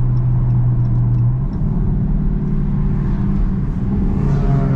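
Dodge 392 Hemi V8 running at low load, heard from inside the cabin while cruising at around 40 mph: a steady low drone over road noise. The drone's pitch shifts about a second and a half in and again near the end as the car eases off.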